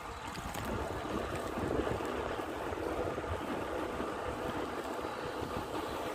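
Wind rushing and buffeting over the microphone while riding a bicycle, a little louder from about a second in.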